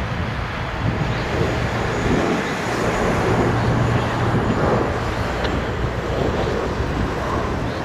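Jet aircraft engines running with a steady rumble and hiss.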